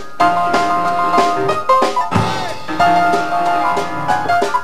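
Live traditional New Orleans jazz band playing: upright piano and drum kit keeping a steady beat under held melody notes.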